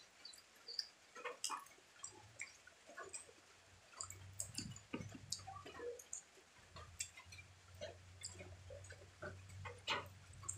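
Mouth sounds of someone eating chicken with her hands: scattered small wet clicks and smacks of chewing. A low steady hum comes in about four seconds in.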